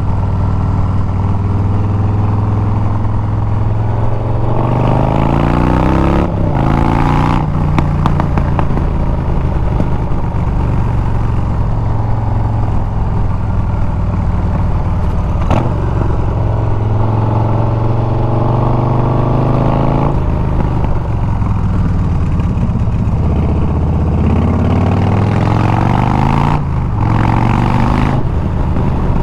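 Harley-Davidson Milwaukee-Eight 114 V-twin running through a loud aftermarket Bassani exhaust while riding. It holds a steady cruise, then revs up twice with a break in the sound after each climb, about six seconds in and near the end, like gear shifts.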